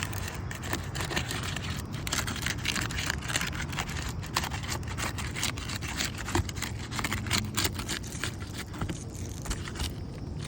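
Old asphalt 3-tab shingles being pried up and their sealant strips broken loose: a continuous run of small crackles, clicks and scrapes over a steady low rumble.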